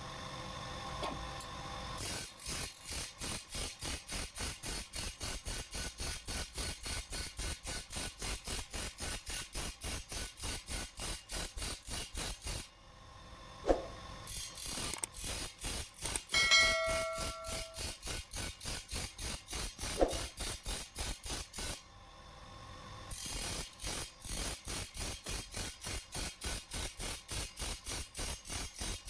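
A hand file working the edge of a steel chaff-cutter blade in quick, even strokes, about four a second, as its cutting teeth are filed in. Midway the strokes stop for several seconds; there are two sharp knocks and a short metallic ring in that gap, then the filing resumes.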